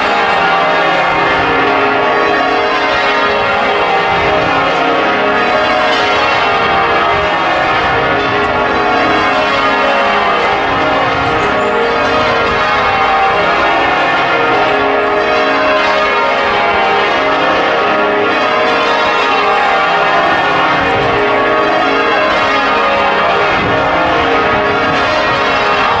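Change ringing on the heavy ring of bells of Liverpool Anglican Cathedral, tenor 82 cwt in A♭, heard from outside the tower: a continuous stream of overlapping bell strikes with a lingering hum.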